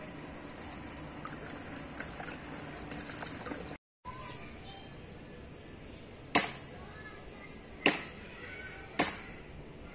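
A heavy knife chopping up a chicken on a cutting board: three sharp single strikes in the second half, a second or so apart.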